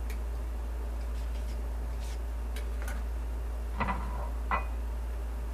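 Light ticks, then two short knocks a little after the middle, as an orange is cut and handled over a glass jug on a stone counter. Under them runs a steady low hum.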